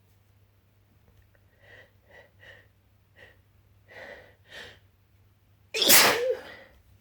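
A person's sneezing fit: six short breaths, quick and quiet, then about a second later one loud sneeze near the end.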